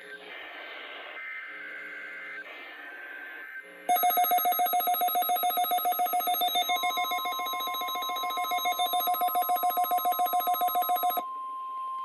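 A weather-radio voice ends a forecast line. About four seconds in, a loud, rapidly pulsing, ringing alert starts. Midway it is joined by a steady high tone, the NOAA Weather Radio 1050 Hz warning-alarm tone of a routine test. The pulsing stops about a second before the end, leaving the steady tone alone.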